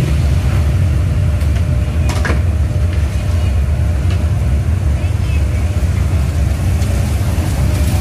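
Steady low rumble of a running machine or busy surroundings, with a couple of light clicks about two and four seconds in.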